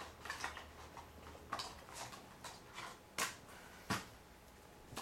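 Scattered light clicks and taps of small hard objects being handled, the two loudest a little past three and about four seconds in.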